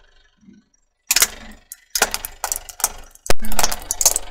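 Plastic toy yo-yos cracking and snapping under a slowly rolling car tyre, with grit crunching under the tread on asphalt. A dense run of sharp cracks starts about a second in, and the loudest crack comes a little past three seconds.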